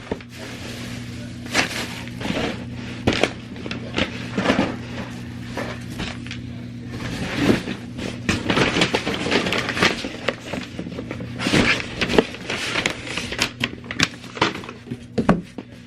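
Clicks, knocks and rustling of household items being handled and set down, over a steady low hum.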